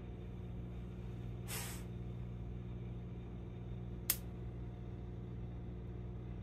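Steady low hum by a lit gas stove burner with a marshmallow roasting over the flame, with a short hiss about a second and a half in and one sharp click about four seconds in.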